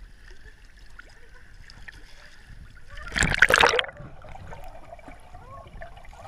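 Pool water lapping and splashing at the surface. A loud splashing rush comes a little past halfway as the waterproof camera dips under the water, followed by muffled underwater sound.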